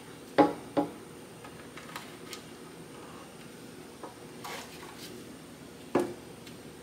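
Sharp clicks and light ticks of plastic push-in rivets being pressed by hand into a metal side-step cover plate: two quick clicks about half a second in, a few faint ticks after, and a louder click about six seconds in.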